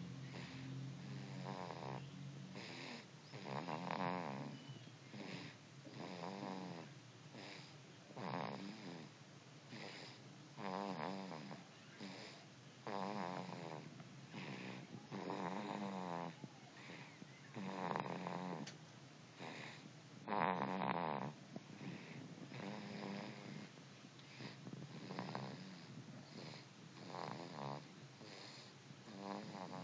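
Snoring in sleep: slow, regular snores about one every two seconds, each with a rattling flutter. The loudest comes about two-thirds of the way through.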